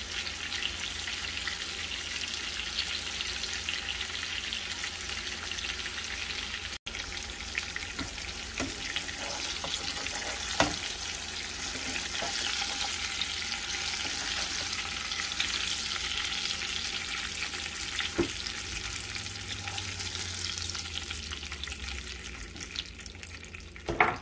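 Flour-dredged liver slices frying in hot oil in a nonstick skillet, sizzling steadily. A few sharp clicks of a metal spatula against the pan come through now and then, the loudest about ten seconds in and at the very end.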